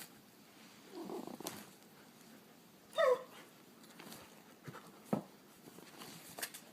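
A dog gives one short whine, falling in pitch, about three seconds in, with a few soft rustles and light clicks around it.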